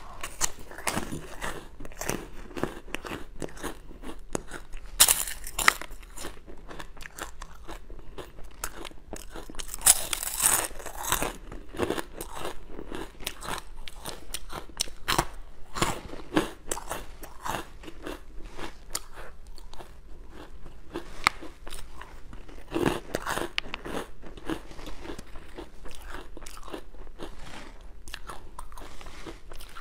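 Close-up crunching and chewing of freeze-dried fruit and vegetable crisps such as okra and dragon fruit: repeated crisp bites followed by dense crackling as they are chewed, with a few louder bites scattered through.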